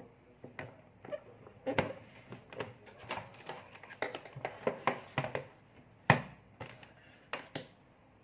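Multimeters and their test leads being handled on a desktop as a digital meter is set aside and an analog meter brought in: an irregular string of clicks, knocks and lead rustles, with one sharp knock about six seconds in.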